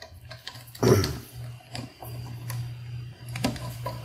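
Bolts holding a Tecumseh engine's ignition armature being snugged by hand with a hand driver: light metallic clicks and ticks, with one louder clunk about a second in.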